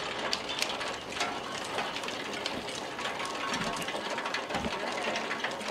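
Ginkgo nut sorting machine running: a steady rattle of turning steel rollers, with many irregular sharp clicks as the hard-shelled nuts tumble along and drop through the chutes. A couple of low thuds come about three and a half and four and a half seconds in.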